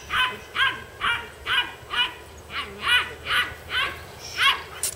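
A dog yipping over and over, about a dozen short high-pitched yips at a steady pace of two to three a second.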